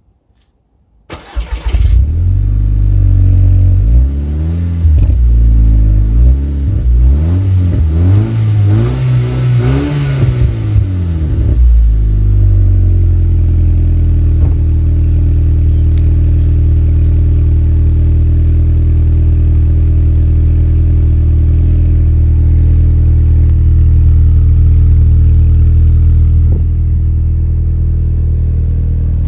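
Cold start of a VW Golf MK5 GTI's 2.0-litre turbocharged four-cylinder, heard at the tailpipes of its R32-style centre twin exhaust. The starter cranks briefly and the engine catches about a second in. The revs rise and fall unevenly for about ten seconds, then settle into a steady idle.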